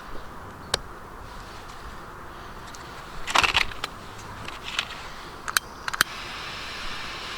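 A few sharp clicks and a short crackle, then a steady hiss sets in about six seconds in: a firecracker fuse burning.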